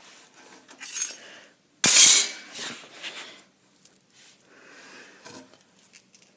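Metal parts clattering and clanking as they are handled, with one loud metal clank about two seconds in.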